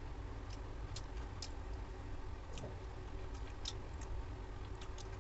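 Eating by hand from a steel plate: scattered soft clicks of chewing, lip smacking and fingers on the plate, at irregular intervals over a steady low hum.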